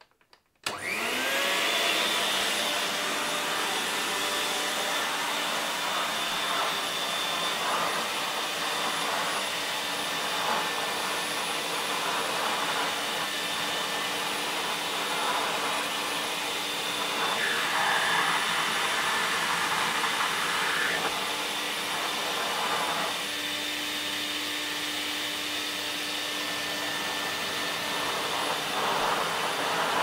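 VAX 121 wash vacuum cleaner switched on with a click about half a second in, its motor winding up over a second and then running steadily. Its clear nozzle is drawn over carpet during carpet washing, and the suction hiss shifts now and then as it moves.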